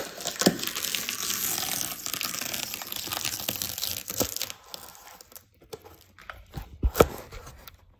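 Utility knife slitting the packing tape along the seam of a large cardboard box: a steady scraping, tearing sound for about four and a half seconds. Lighter scrapes and a sharp knock follow near the end.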